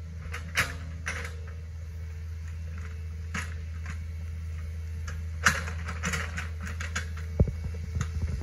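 Hitachi ZX48U mini excavator running with a steady low drone as it digs out a muddy ditch. Scattered sharp clicks and clanks from the bucket and arm come through, bunched together about five to seven seconds in.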